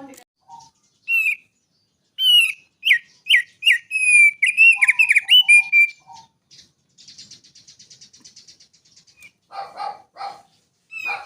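A songbird singing: a run of loud, clear whistled notes with quick downward slurs, then a fast, high, buzzy trill, then a few harsher, lower chattering calls near the end.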